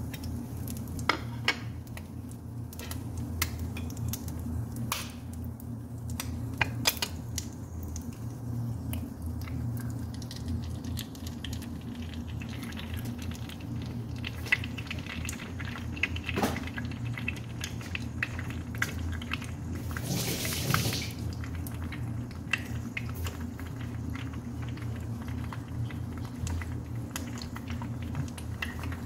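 Scattered clinks and taps of cutlery and dishes over a steady low hum, with a brief hiss about twenty seconds in.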